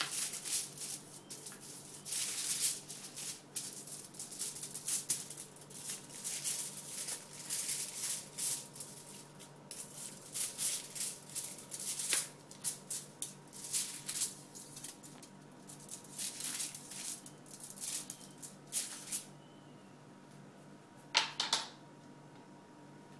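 Tin foil and plastic crinkling as they are handled, a quick run of rustling bursts that stops about nineteen seconds in, with one more short rustle near the end.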